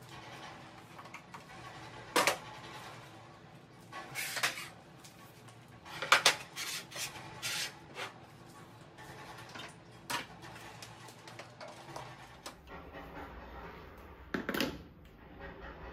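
Household items being set down on the shelves of a metal rolling cart: a string of separate knocks and clunks a second or more apart. Near the end comes a heavier thump as an electric kettle is lowered onto its base.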